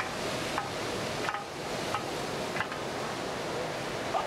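Steady ocean surf hissing on a beach, with four short faint chirps over the first couple of seconds.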